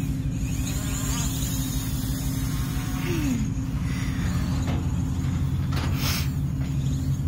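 DJI Mavic Pro quadcopter's propellers buzzing with a steady hum as it is launched from the hand and lifts off, its pitch dipping briefly about three seconds in, over a low steady rumble.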